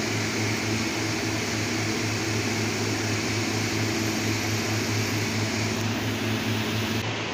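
Steady whirring machine hum, like a running fan, with a low drone that throbs slightly.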